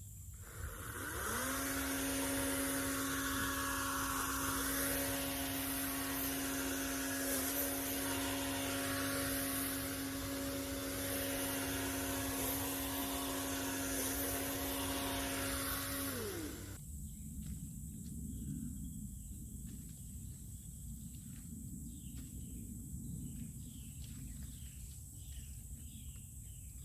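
Toro chainsaw starting up with a quick rise in pitch, running at a steady pitch for about fifteen seconds, then winding down and stopping. Quieter outdoor background follows.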